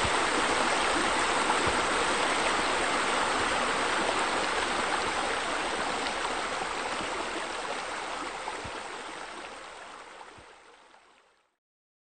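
Steady rush of flowing water, fading out gradually over the second half and ending about eleven and a half seconds in.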